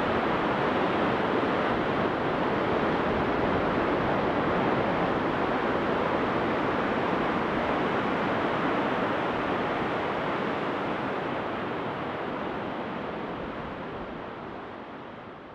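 Steady wash of sea surf, an even rushing noise that fades out over the last few seconds.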